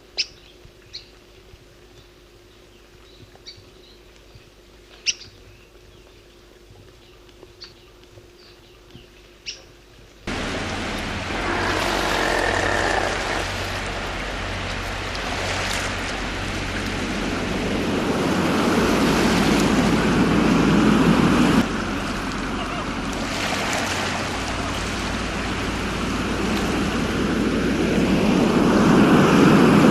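An archival recording of a bird giving sparse, short, sharp chirps over a faint steady hum. About ten seconds in, it cuts abruptly to a much louder, steady rushing noise that swells toward the end.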